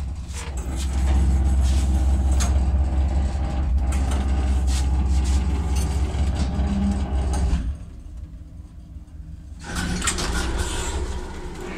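Old Soviet passenger lift, a 1986 Samarkand-built car, travelling: a steady low hum with rattling clicks from the car, which cuts off sharply about eight seconds in as the car stops. About two seconds later a second mechanical noise starts as the car doors open.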